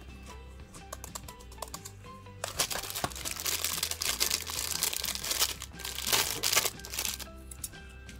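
Thin clear plastic bag crinkling and crackling as it is squeezed and handled, loudest from about two and a half seconds in until shortly before the end, over soft background music.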